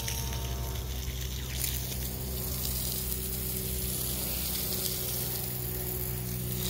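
A steady hiss over a low, steady machine-like hum made of a few constant tones.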